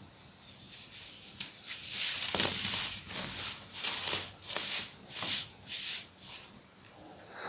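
Compressed baking soda being crushed: a run of crisp, crumbly crunches, about two a second, loudest a couple of seconds in and thinning out near the end.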